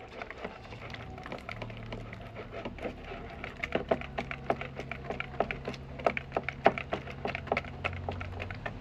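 A utensil clicking and scraping against a bowl as yogurt, egg and oil are beaten together by hand: quick, irregular clicks, sharper from about a third of the way in, over a faint low hum.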